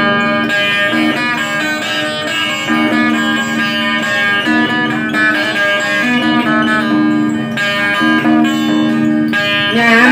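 Acoustic guitar played through a small portable amplifier, picking out an instrumental passage of plucked notes over held chords. A singing voice comes in at the very end.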